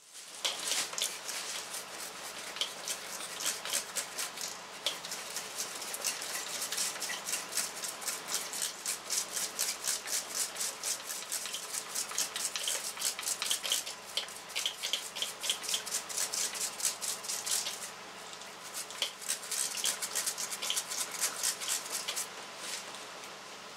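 Stiff brush scrubbing the sludged-up cylinder head of a 2006 Hummer H3's 3.5-litre five-cylinder engine, a fast, steady run of scratchy strokes that pauses briefly about 18 seconds in.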